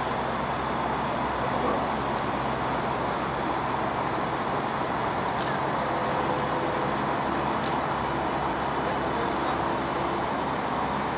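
CH-77 Ranabot light helicopter's engine idling on the ground before takeoff, a steady even drone that holds its pitch and level throughout.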